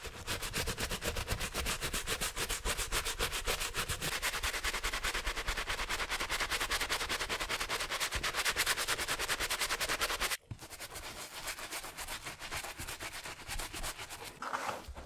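A brush scrubbing a sneaker in fast, rapid strokes. About ten seconds in it cuts off suddenly, then goes on softer and sparser.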